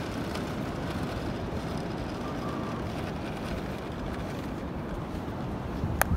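Steady low rumble of ocean surf and wind on the beach, with a single sharp click near the end.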